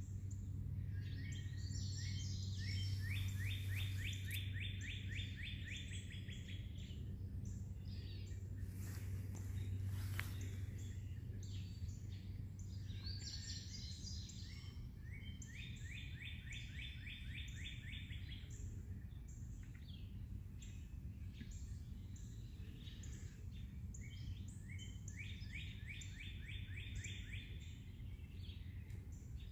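A songbird singing the same song three times, about ten seconds apart: a few opening chirps, then a rapid trill lasting a few seconds. A steady low hum runs underneath.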